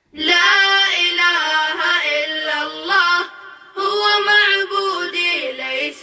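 Vocal nasheed singing: a voice holding long, wavering, ornamented notes, with a short break about three seconds in.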